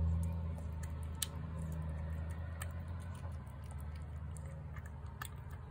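A cat chewing wet food from a plate close by, with scattered small sharp clicks, over a low steady hum that slowly fades.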